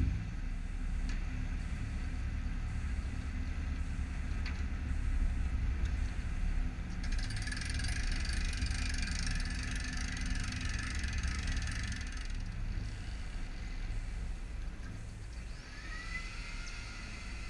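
Steady low rumble throughout, with a hissing rush from about 7 to 12 seconds in. Near the end an electric air compressor for an air-assist boat docking system starts up, with a rising whine that settles into a steady high hum.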